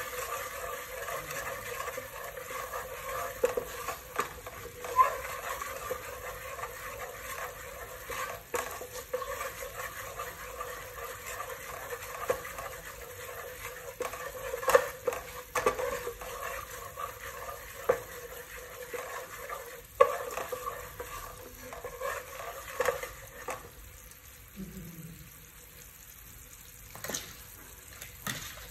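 A wooden spatula stirring and scraping through liquid bubbling in a metal pot, with a steady sizzle. Irregular sharp knocks come where the spatula hits the pot's side and bottom.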